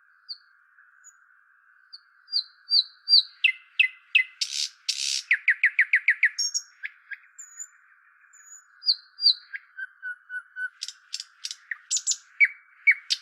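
Small songbirds chirping and calling: clusters of short high chirps, a quick series of downward-sweeping chirps around the middle with a brief harsh burst just before it, and a fast rapid run of chirps near the end.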